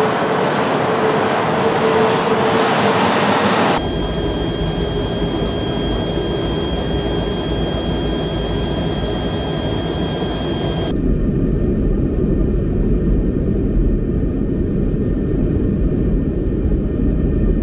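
KC-135 tanker's jet engines running as it taxis, a loud rush with a steady whine. Then, with a sudden change about four seconds in, the steady rumble of flight heard from inside the tanker, with a thin high whine; the sound turns duller and lower for the last few seconds.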